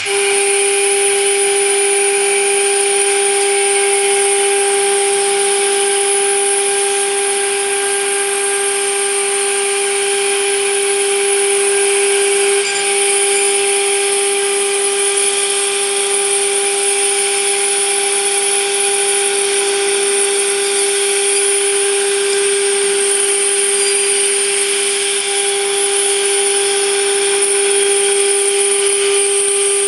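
CNC router spindle milling thick aluminum at a slow 500 mm/min feed. It gives a steady mechanical whine with a higher whine and cutting hiss over it, holding even throughout.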